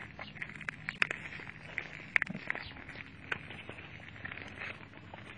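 Clear plastic bubble-wrap packaging crinkling and crackling as fingers handle and unwrap it, with irregular sharp crackles, the loudest about one, two and three seconds in.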